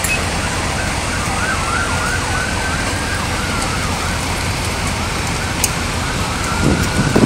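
Emergency-vehicle siren heard faintly over the steady noise of fire engines at the scene, sounding in quick rising-and-falling yelps, then changing to a slower rising wail near the end.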